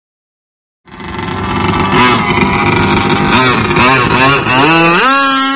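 Enforcer Stingray RC hydroplane's small engine, cutting in loud about a second in and revving unevenly in short throttle blips, then climbing sharply in pitch near the end and holding a higher, steady note as the throttle opens.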